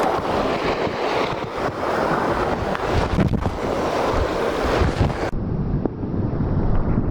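Wind buffeting the microphone over the steady wash of surf on the shore. The hiss above it drops away abruptly about five seconds in.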